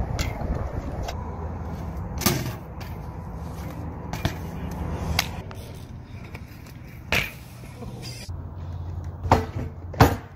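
BMX bike riding on concrete: a low steady rumble with about five sharp clunks and clacks from landings and the bike striking ledges, the loudest two near the end.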